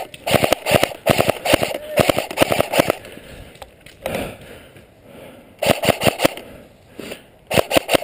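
Airsoft rifle firing in quick bursts of sharp shots: several bursts in the first three seconds, then two shorter bursts near the end.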